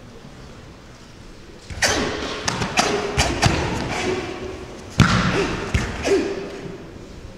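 Thuds and sharp snaps from a karate competitor's stamps and strikes on the mat, in two clusters: one starting about two seconds in, and the loudest about five seconds in.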